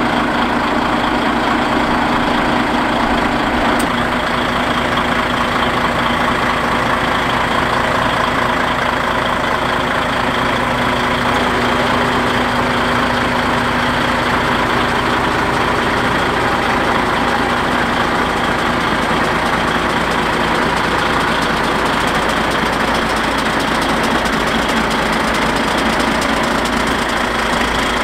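DAF XF95.480 truck's six-cylinder diesel engine idling steadily.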